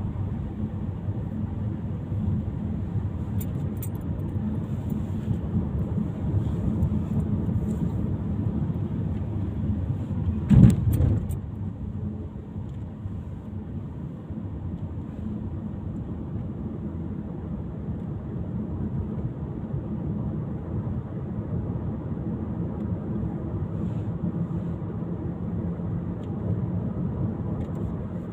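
Steady engine and road noise of a car being driven, with one short, loud thump about ten seconds in.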